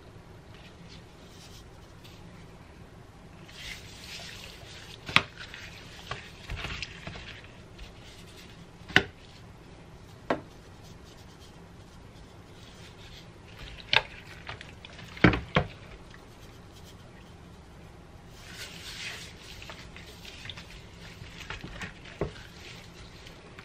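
Gloved hands sprinkling garlic powder from a shaker bottle and rubbing it into a raw whole chicken on a metal sheet pan: soft shaking and rubbing noises with several sharp clicks and knocks, the loudest a close pair just past the middle.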